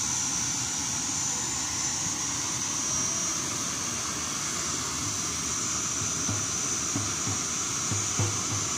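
Steady rushing noise of a tall waterfall plunging into its pool. Low thumps come in over the last few seconds.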